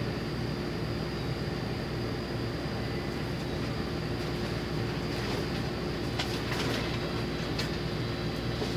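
Steady mechanical hum and noise of the shop, with one held hum tone, like refrigeration or air-conditioning running. A few light clicks and rustles come in the second half.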